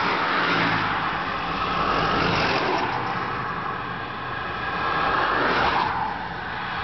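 Road traffic: the tyre and engine noise of cars passing, swelling and fading several times, loudest near the end before easing off.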